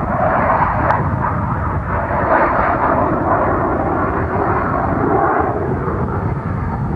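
Jet noise of an F-16 Fighting Falcon's single turbofan engine as the fighter flies its display pass: a loud, steady rushing sound that swells slightly and then eases.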